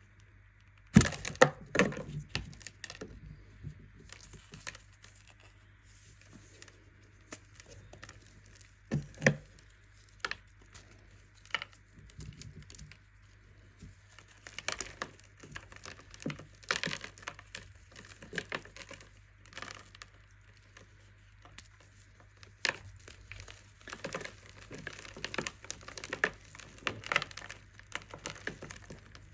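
Compressed baking soda being crushed: irregular crunchy crackles and snaps with short pauses between them. The loudest crunches come about a second in and again around nine seconds.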